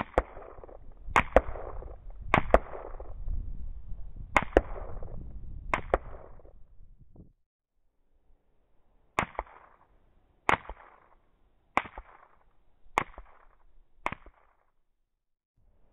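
AR-15 rifle in 5.56 firing single shots: four sharp reports spaced one to two seconds apart, each trailing off briefly, then after a short silence five more at an even pace of a little over one a second.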